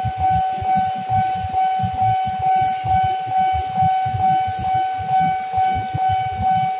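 Railway level-crossing warning alarm sounding with the barrier down: a steady electronic tone that pulses in loudness a bit under twice a second.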